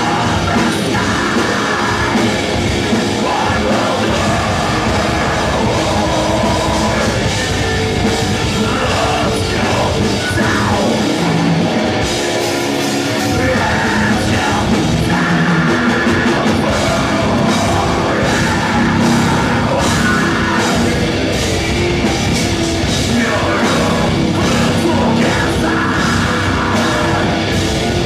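Live metalcore band playing at full volume: distorted guitars, bass and drums with dense drum hits, and screamed vocals over the top.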